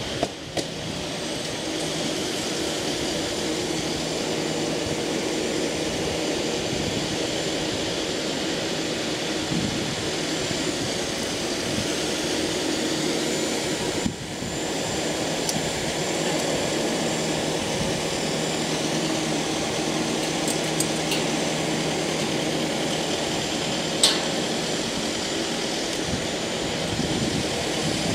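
Steady drone of an engine running at a constant speed, with a sharp click about 24 seconds in.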